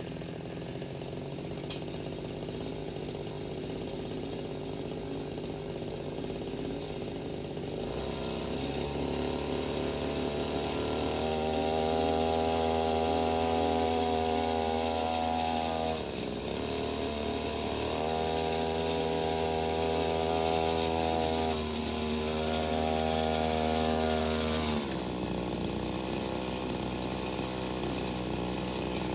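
Small engine of a home-built tractor running steadily, then throttled up about eight seconds in and held at higher speed, with two brief dips, before dropping back to a lower speed near the end as the tractor moves under its own power.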